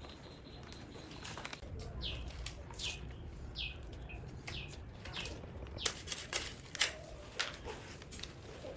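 Several short, falling chirps of a small bird, one after another, with a few sharp taps and crackles, the loudest in the second half.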